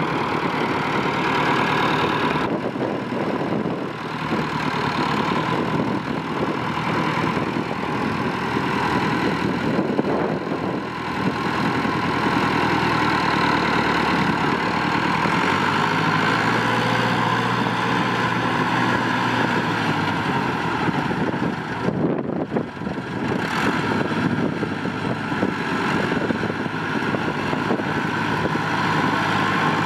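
Massey Ferguson 265 tractor's diesel engine running steadily at low speed as the tractor is driven around; the engine note steps up slightly about halfway through.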